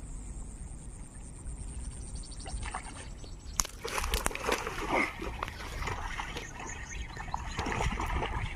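Water splashing and sloshing in irregular bursts as a hooked snakehead thrashes at the surface while being reeled toward the bank, starting about three and a half seconds in after a quieter stretch.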